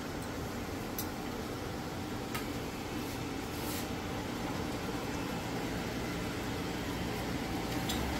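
Steady room hum with a few light clicks of forks and knives against plates.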